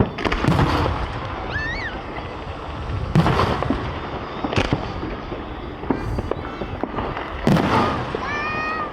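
Aerial fireworks shells bursting overhead: four loud booms a second or three apart, each trailing off, with crackling in between.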